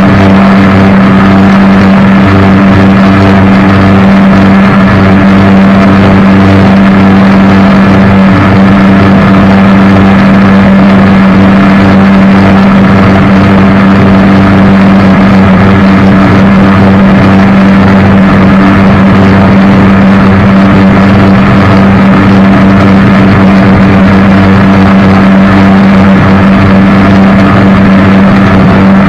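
Jet boat engine running loud at a steady speed, holding one even pitch throughout.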